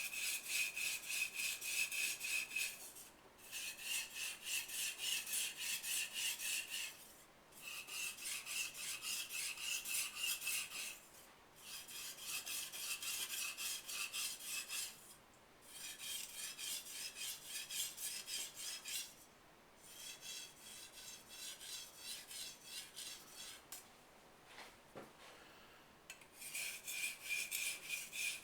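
Steel knife blade scraped back and forth over a wet 6000-grit finishing water stone, about four strokes a second, in runs of three to four seconds with short pauses between. The strokes grow fainter in the later runs as lighter pressure is used to shrink the burr, then are louder again near the end.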